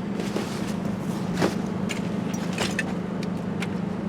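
Steady low hum of a car idling, heard from inside the cabin, with a few faint clicks and rustles of handling.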